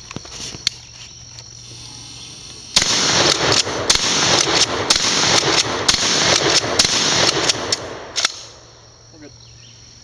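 A rapid series of gunshots, about two a second, starting about three seconds in and lasting about five seconds before fading out. The shots are fired at an old sheet-metal dishwasher.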